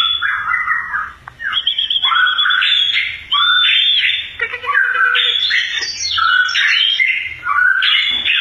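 Caged songbird singing a loud, varied song of whistled and chattering phrases, one after another with only short breaks.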